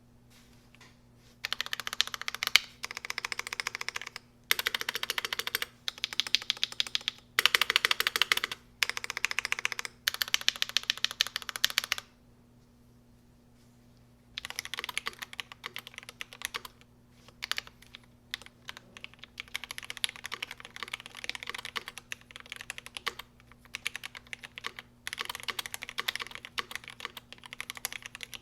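Typing on a GMMK Pro mechanical keyboard with an aluminum plate, lubed Alpaca linear switches and GMK keycaps: fast runs of keystrokes in several bursts. A pause comes about halfway, then slower, more scattered typing.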